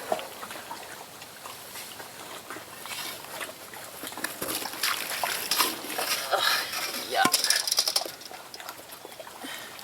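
Pigs grunting and moving about in a wet, muddy pen, with splashing and short clicking noises, busiest in the middle of the stretch.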